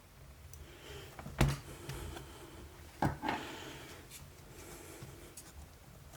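Handling noises from a laptop being worked on at a bench: two sharp knocks, about a second and a half in and about three seconds in, with light scraping and rustling between them.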